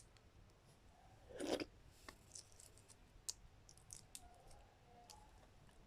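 Faint sounds of someone eating balot: scattered small clicks, and a brief crunch about a second and a half in.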